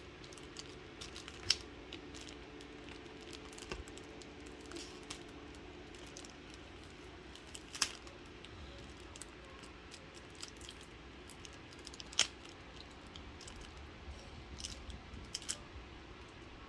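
Handling noise from a pack of trading cards being opened: scattered light rustling and crinkling with a few sharp clicks, the loudest about eight and twelve seconds in, over a faint steady hum.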